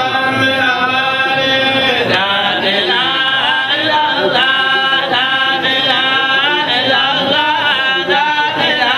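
Men chanting a devotional song through a microphone: a lead voice carrying a continuous, wavering melody with other male voices joining in.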